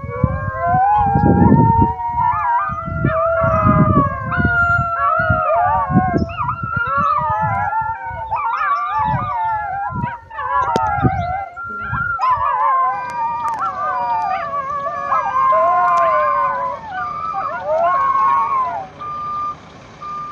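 A pack of canines howling together in chorus, many voices gliding up and down and overlapping. Low, uneven rumbles run underneath for the first two-thirds. Near the end, a vehicle reversing alarm beeps steadily at one pitch alongside the howls.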